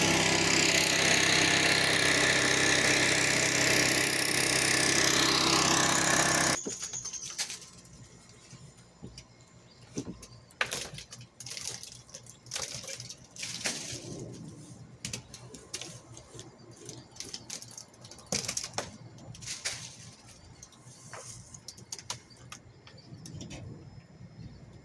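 Gas-engine leaf blower running steadily at full throttle, stopping abruptly about six seconds in. After that come scattered light knocks and clicks.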